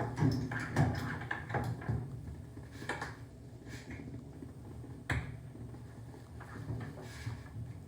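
Irregular light knocks and clicks, with one sharper knock about five seconds in, as of hand tools and metal parts being handled during shower valve work.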